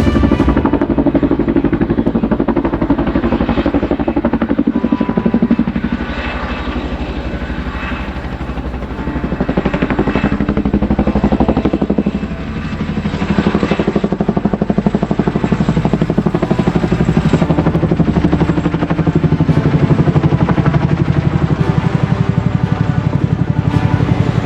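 Helicopter sound effect: the rotor blades chopping in a steady, rapid beat, dipping briefly in level twice about a third and halfway through.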